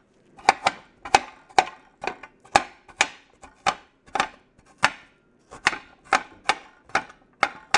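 A knife chopping slices of raw turmeric root on a cutting board: a run of sharp knocks at an uneven pace of about three a second.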